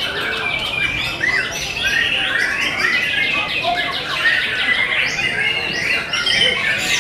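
White-rumped shamas singing in contest cages, several at once: a dense, unbroken tangle of overlapping whistles, trills and chirps.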